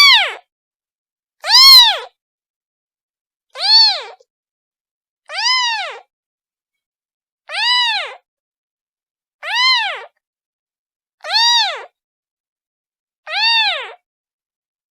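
Kitten meowing over and over, calling for its mother: about eight high-pitched calls, each rising then falling in pitch, spaced about two seconds apart with silence between.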